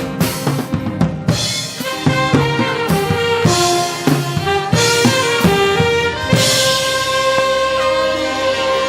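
Live band playing a dance tune, a brass-like lead over a drum kit: a run of short melodic notes with drum hits, then a long held chord from about six seconds in.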